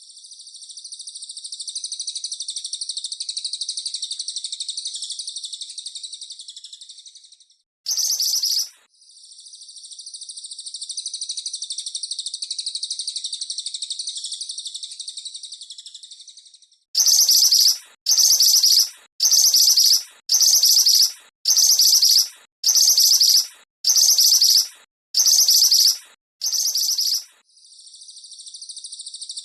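Small songbird calling, high-pitched. A long, even trilling chatter runs for about seven seconds, a short sharp burst follows, then a second long trill. After that comes a run of about ten short, loud, sharp calls, roughly one a second, and near the end the trilling starts again.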